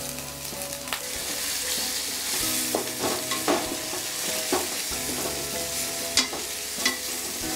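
Raw chicken pieces sizzling in hot oil and fried onions in a stainless steel pan, as they begin to roast, while a metal slotted spatula stirs and scrapes them against the pan with sharp clicks every second or so.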